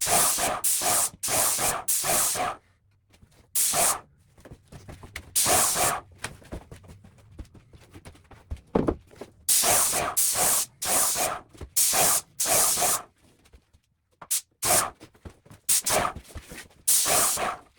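Graco Magnum X5 airless paint sprayer gun spraying in short passes: about a dozen bursts of hiss, each half a second to a second long, with brief pauses between them and a longer pause midway.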